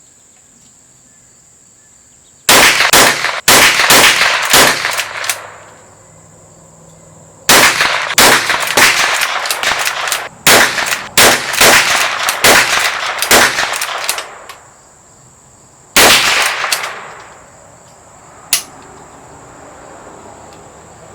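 Strings of rapid gunshots fired in quick succession: one string a few seconds in, a longer one in the middle, a couple more shots after and a lone crack near the end. Crickets buzz steadily underneath.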